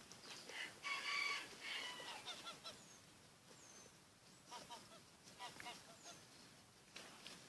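Tibetan mastiff puppies whining and yelping: a loud yelp about a second in, then a few short squeaky whimpers later on. Faint high bird chirps in the background.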